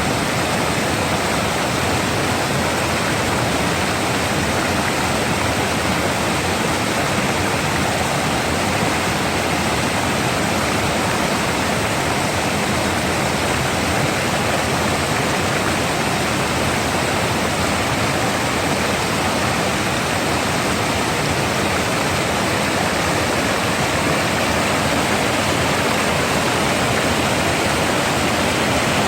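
Rough, fast-flowing water rushing steadily: a continuous dense wash of water noise with no let-up.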